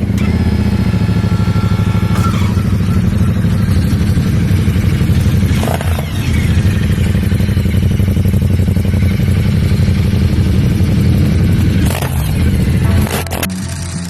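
Ducati motorcycle engine running loudly with a rapid low pulse, changing in revs briefly a few times, and dropping off a little near the end.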